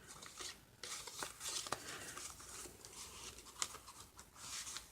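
Paper pages of a handmade junk journal being turned and handled: soft, uneven rustling with a few light clicks and taps.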